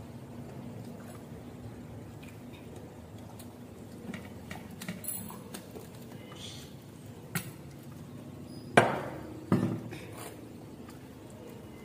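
Eating at a table with stainless steel plates and a steel tumbler: scattered light clinks and taps of fingers and tableware on steel, then two sharp loud knocks about a second apart near the end.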